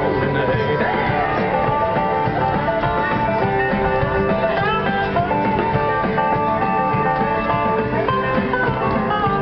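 Country line-dance music with guitar, played over a PA loudspeaker.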